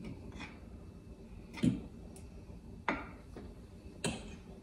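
A utensil clicking against a glass baking dish while a piece of frosted cake is cut and lifted out: about four short, sharp clicks roughly a second apart.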